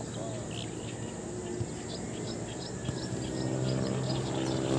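Insects chirping in a quick run of short, high chirps. About three seconds in, a low steady hum grows beneath them.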